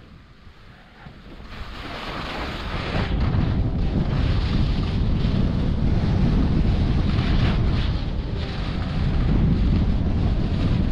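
Wind rushing over the microphone, building from quiet to a loud, steady rush over the first three seconds, as from the speed of a downhill ski run.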